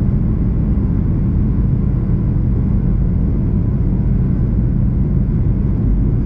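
Steady low rumble of a travelling vehicle heard from inside its cabin, even throughout with no distinct events.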